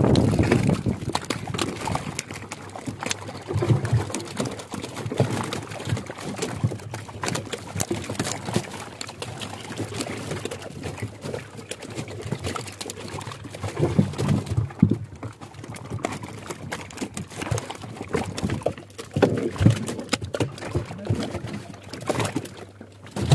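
A boat hold heaped with freshly caught carp, the wet fish flopping and slapping against each other. Irregular wet clicks and taps run throughout, with a few louder thuds.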